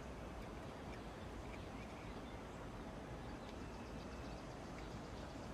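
Faint steady background hiss with no distinct sounds, apart from one small click right at the start.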